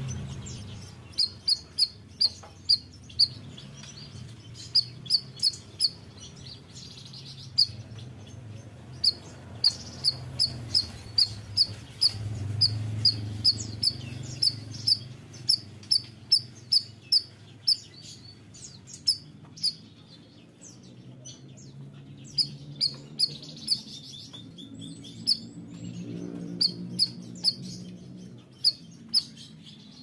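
Caged bayeman (siri-siri) songbird calling energetically: a sharp, high, short chirp repeated in evenly spaced runs of about two to three a second, with brief pauses between runs.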